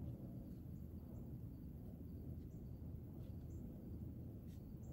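Quiet woodland ambience: a steady low rumble with a few faint, short high ticks scattered through it.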